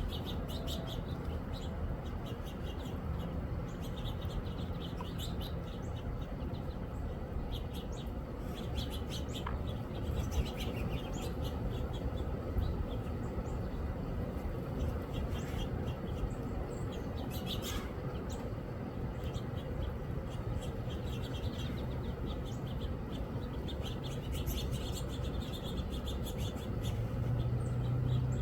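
Birds chirping: many short chirps scattered throughout, over a steady low background rumble, with a low hum rising in the last second or so.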